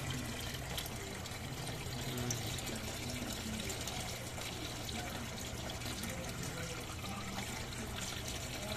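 Water trickling steadily, a constant running-water sound in a small water-filled tank.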